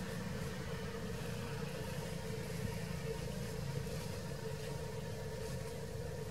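A motor running steadily out of sight: a constant low drone with a faint, unwavering hum above it.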